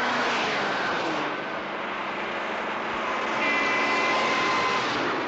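Road traffic rushing past at speed: a steady roar of cars and a larger vehicle going by on a highway, with a high steady whine joining in for about a second and a half past the middle.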